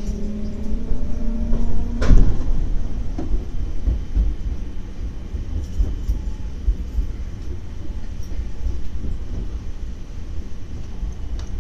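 Electric train running at low speed. A steady hum of a few tones stops about two seconds in with a sharp clunk, leaving the low rumble of wheels on the track.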